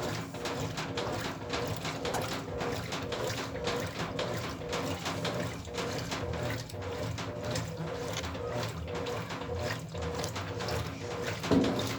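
Brastemp Ative top-loading washing machine running its wash cycle: a steady motor hum under water sloshing in the drum, with clicking from the mechanism. A brief louder knock comes just before the end.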